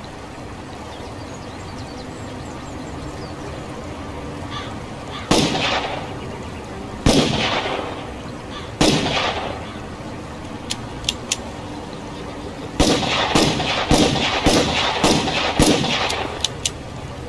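Revolver gunshots: three single shots a couple of seconds apart, each with a ringing tail, then three light clicks, then a fast string of about eight shots.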